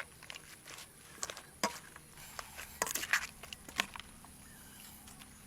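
Knife cutting fresh herbs on a cutting board: a scattering of sharp, irregular knocks that stop about four seconds in.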